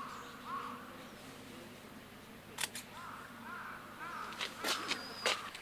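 Quiet outdoor ambience with short, arching chirps, one near the start and a quick run of them past the middle, and several sharp clicks in the second half.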